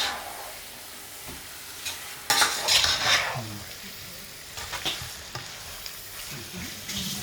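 Raw chicken pieces sizzling in hot oil with fried onions and spice masala while being stirred in the pot. There is a louder burst of sizzling and stirring about two to three seconds in, and smaller ones later.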